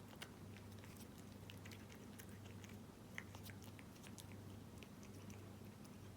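A cat chewing wet food, tuna in jelly: faint, irregular small wet clicks of its bites, over a steady low hum.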